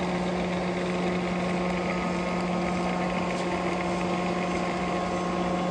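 Cincinnati universal cylindrical grinder running, its motors and hydraulics giving a steady hum on one low tone with overtones, while the pick feed works the wheel head in.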